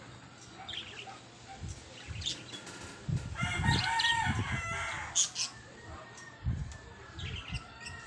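A rooster crows once, starting about three seconds in and lasting about a second and a half. Short high chirps from caged budgerigars come before and after it, over a few low thumps.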